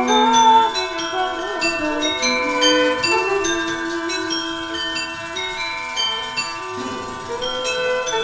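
A violin bowing long, wavering notes under a steady run of quick, high, bell-like tinkling notes that step down in pitch, with a woman singing softly.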